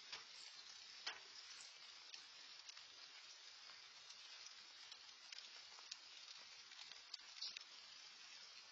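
Light rain falling: a faint, steady hiss with scattered drip ticks, a few louder ones near the start, about a second in and near the end.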